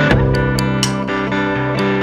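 Background music led by plucked guitar over a bass line, with a light regular beat.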